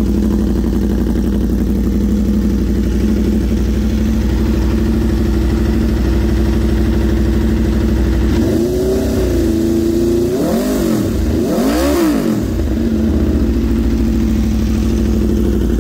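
2021 Aprilia RSV4's V4 engine through a QD slip-on exhaust, idling steadily in neutral. A little past halfway it is revved: one held rise in revs, then two quick throttle blips, before it drops back to idle.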